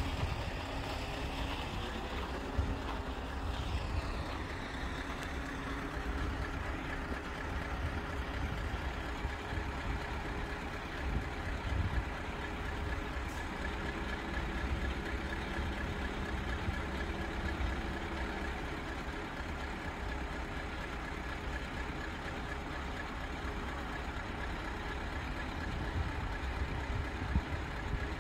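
Road vehicles, among them a lorry, idling in a queue at a closed level crossing: a steady low engine rumble with a faint hum.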